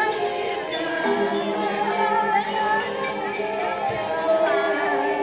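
A group of voices singing without accompaniment, several voices holding long notes that overlap.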